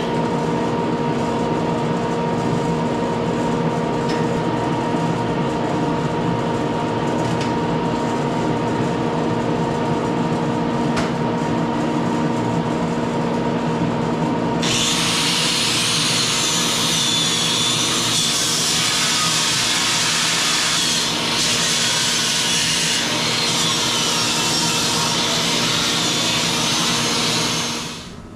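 Electric power tool running steadily with a humming motor. About halfway through the sound switches abruptly to a brighter, harsher cutting noise, then stops just before the end.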